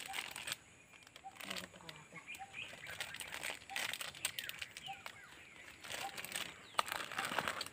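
Intermittent rustling and crinkling handling noises, loudest in clusters about a second and a half in, around the middle and near the end. Faint short bird chirps repeat through it.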